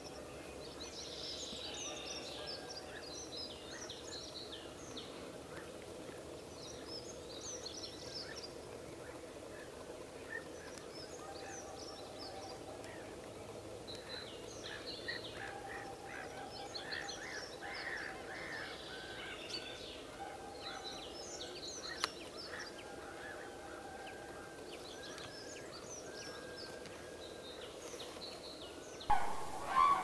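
Faint, scattered bird calls across an open wetland. About a second before the end, a common crane (Grus grus) starts loud, repeated trumpeting calls.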